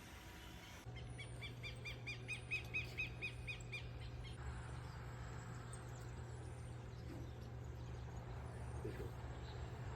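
A bird calling a quick run of about a dozen repeated chirps over a steady low hum.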